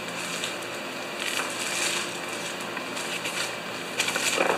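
Plastic mailer bag crinkling and rustling as it is handled and turned over, in irregular crackles with a louder stretch near the end.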